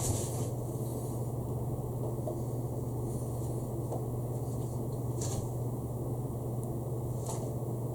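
Steady low electrical hum over background room noise, with two brief soft rustles about five and seven seconds in.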